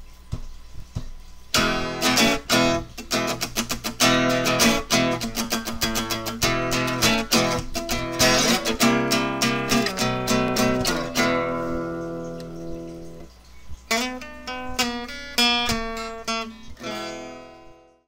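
Background music on acoustic guitar, strummed and plucked chords. It starts about a second and a half in, thins out for a couple of seconds past the middle, returns, and stops just before the end.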